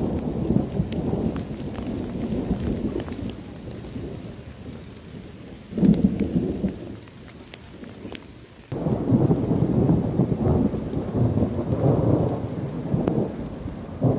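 Rain falling in a forest, with scattered sharp ticks of drops or hailstones over a deep rumble that swells and fades, rising suddenly twice, around six and nine seconds in.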